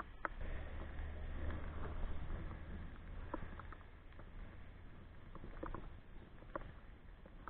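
Rain pattering in scattered drops close to the microphone, with a low rumble in the first few seconds.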